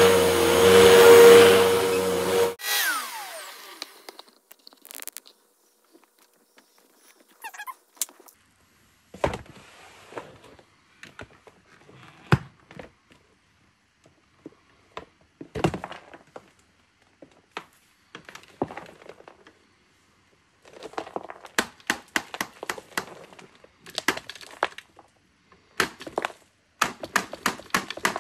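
Upright vacuum cleaner running steadily, then switched off about two and a half seconds in, its motor winding down. Then scattered knocks and clicks of the plastic dirt canister being handled, and from about two-thirds of the way in a rapid, irregular patter of clicks and rattles as the canister is emptied into a plastic bin.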